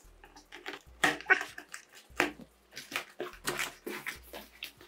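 Small knife slicing through packing tape on a cardboard box: a series of short, irregular cutting and scraping strokes, the loudest about a second in.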